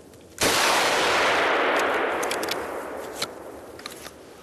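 A single gunshot from a hunting gun fired at a running animal, its echo rolling through the forest and dying away over about two seconds. A few faint short clicks follow.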